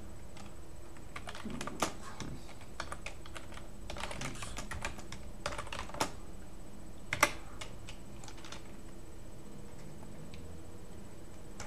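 Computer keyboard being typed on: keys clicking in short irregular bursts, with one louder keystroke partway through, then a pause of a few seconds near the end.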